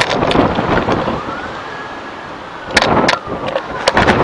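Strong storm wind buffeting the microphone in gusts, with sudden loud blasts at the start, near the end and once in between. Under it an emergency vehicle siren wails, its pitch rising and falling slowly.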